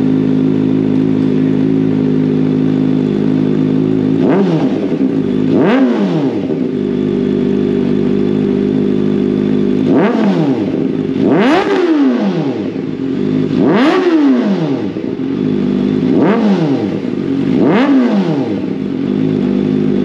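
Kawasaki ZX-4RR's 399 cc inline-four idling through a short aftermarket slip-on muffler with a mesh end cap, then blipped seven times from about four seconds in, each rev rising sharply in pitch and falling back to idle.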